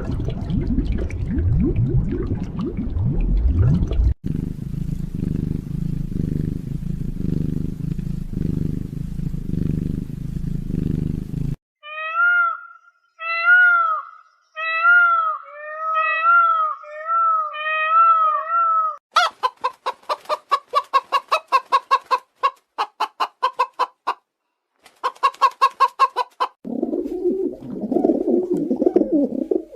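A run of different animal calls cut one after another: first about twelve seconds of low rumbling grunts, then a series of short, clear, arched bird calls, then fast rapid-fire pulsed calls, and a lower hoarse call near the end.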